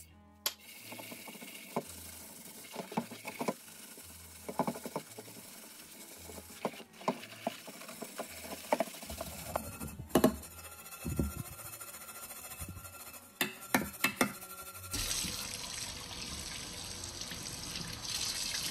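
Tap water running into a stainless steel sink while a copper pan is scrubbed with a copper scouring pad, with short scrapes and knocks of the pan. About fifteen seconds in, the running water becomes louder and steadier as the pan is rinsed.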